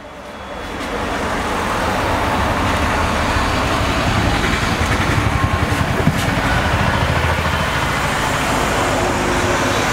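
A 4-jar touch-model mixer grinder running: its motor spins up over the first second or two, then runs loud and steady.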